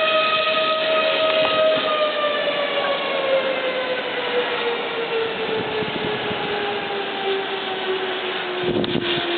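Tornado warning siren sounding a steady tone, then sliding slowly down in pitch and growing quieter as it winds down. A brief thump near the end.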